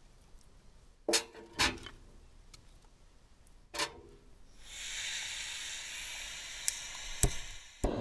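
A few short clinks of cookware, then about halfway through a steady hiss of food sizzling in a hot pan sets in and keeps going, with a couple of small clicks over it.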